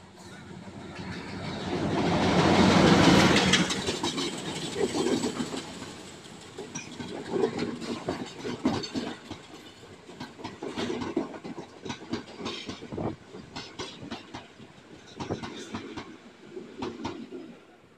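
A Sri Lanka Railways diesel locomotive passes close alongside on the next track, loudest about three seconds in. A train of passenger coaches then rolls past, its wheels clacking repeatedly over the rail joints.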